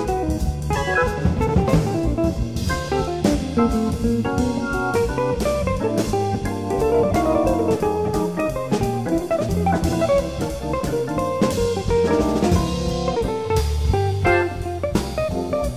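Jazz organ trio of organ, guitar and drum kit playing a swinging tune: guitar lines over organ chords and steady drum and cymbal hits.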